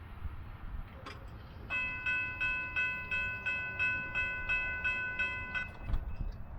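Railroad warning bell ringing quickly, about three strikes a second, for roughly four seconds before stopping abruptly, over a low rumble.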